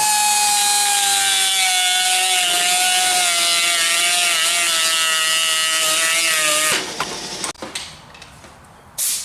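Die grinder running at speed while grinding out the stud slot of a steel chainsaw bar, its steady whine sinking slightly in pitch under load. It stops abruptly about seven seconds in, followed by a few clicks and a short burst of hiss near the end.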